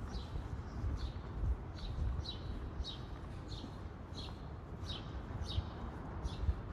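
Footsteps on stone paving at an even walking pace, about one and a half steps a second, each step with a short, high scuff. A faint, steady outdoor background runs underneath.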